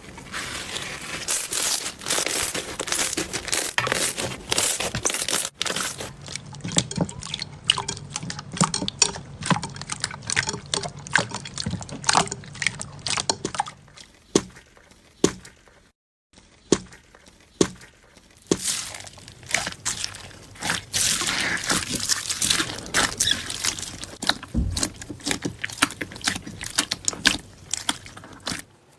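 Slime being squished and pressed, with dense crackling, popping clicks and wet squelches. The sound changes abruptly a few times and drops out briefly just after the halfway point.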